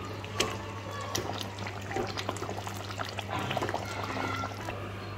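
Mustard gravy of a hilsa fish curry simmering in a pan, bubbling with a scatter of small pops and spits, over a steady low hum.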